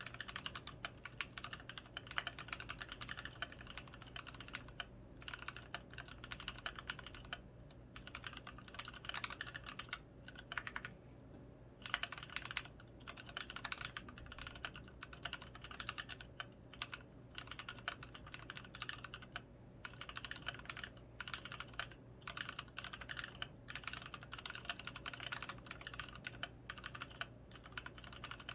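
Typing on a Monstargear XO V3 mechanical keyboard with Kailh Polia tactile switches lubed with Krytox 105 and pudding keycaps: a dense, continuous run of keystroke clacks, with a brief pause a little over ten seconds in.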